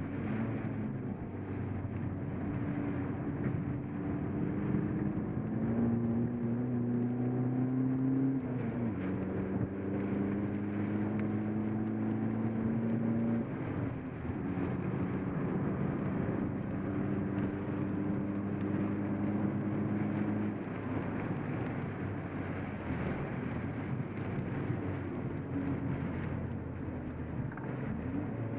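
SEAT Ibiza TDI turbodiesel engine heard from inside the cabin at speed, climbing in pitch under acceleration with a drop at each upshift, about eight and a half and thirteen and a half seconds in. It then holds a steady pitch, and eases off about twenty seconds in, leaving mostly road noise.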